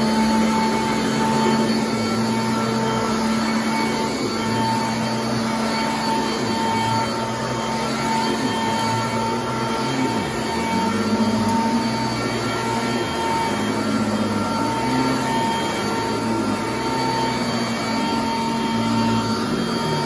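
Sanitaire commercial upright vacuum running with a steady motor hum as it is pushed back and forth over frieze carpet. The lower part of the sound swells and eases about once a second with each stroke.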